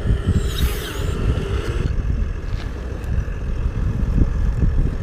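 Whine of a homemade RC backhoe loader's small electric motors, with gliding high tones in the first second or so, over a steady low rumble.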